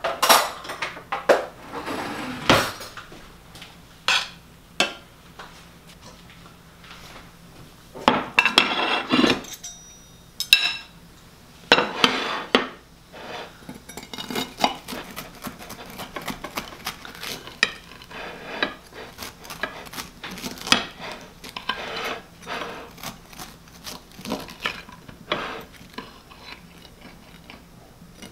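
Ceramic plates clattering as they are set down on a wooden table, then a knife clinking and scraping on a plate while cutting a round of cornbread. The sound is a series of scattered clinks and knocks, in louder clusters about a third of the way in.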